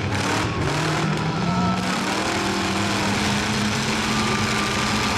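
Demolition derby truck engines running and revving, a steady dense engine noise whose pitch shifts up and down.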